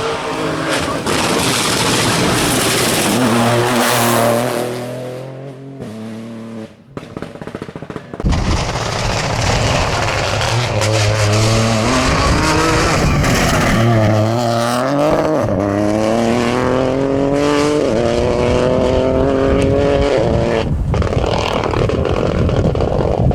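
Rally car engine at full throttle, revving up through the gears in repeated rising pitches with short breaks at each shift. The sound fades about five seconds in, then a loud run of hard acceleration cuts in suddenly at about eight seconds.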